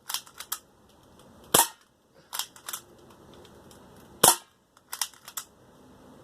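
Two shots from a spring-powered 1911-style BB pistol, about two and a half seconds apart. Each is followed by a few quick, fainter clicks as the BB strikes the metal target plate and ricochets back.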